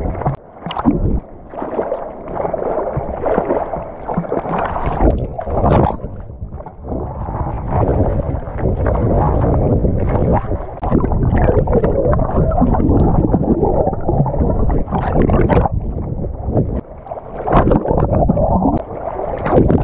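Sea water sloshing and gurgling around a camera microphone dipped in and out of the surface during a swim, muffled while under water, with several sharp splashes from the swimmer's strokes.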